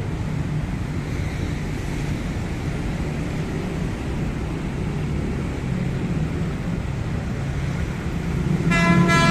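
JR205 series electric commuter train approaching, sounding its horn in two short blasts in quick succession near the end, over a steady low rumble that grows louder as the train draws near.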